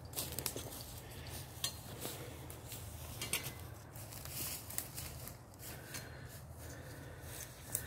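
Footsteps crunching through dry leaf litter and twigs, with irregular snaps and light clinks of carried gear.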